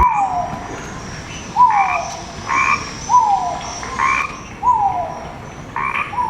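Repeated short animal calls, about one a second, each a brief note that falls in pitch.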